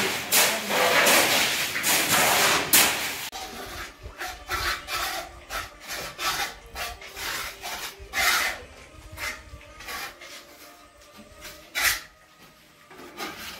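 Shovel and trowel scraping through wet concrete mix on a floor in quick rasping strokes. After about three seconds the sound drops to quieter, scattered scrapes and knocks.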